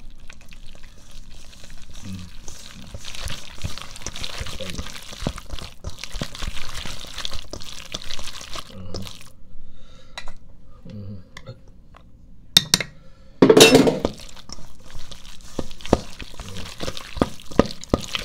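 Bare hands mixing diced chicken thigh with raw egg and potato starch in a stainless steel bowl: wet, irregular mixing noises with small knocks of meat and fingers against the metal. One brief, much louder noise comes about two-thirds of the way through.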